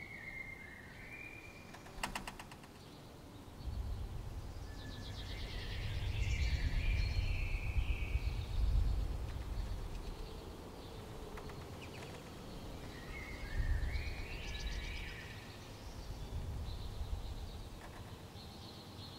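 A songbird sings short warbling phrases several times over a low, uneven rumble, with a single sharp click about two seconds in.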